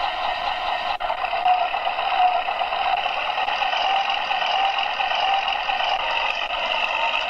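Recorded tank engine sound effect from an RC tank sound card, played through a small Henglong speaker and running steadily, thin and without bass. There is a brief dropout about a second in, after which the engine sound runs a little louder.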